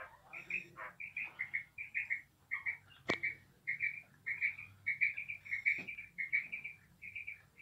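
Female quail calling: a rapid run of short, high chirping notes in quick clusters, several a second, with a single sharp click about three seconds in.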